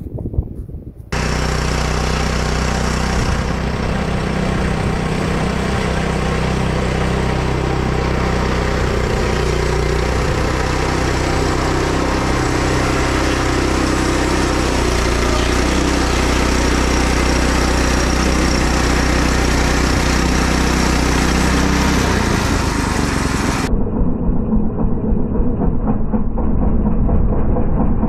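Woodland Mills HM122 portable bandsaw mill running, its engine droning steadily as the band blade cuts through a poplar log. A few light knocks come before the engine starts up about a second in, and near the end the sound turns duller.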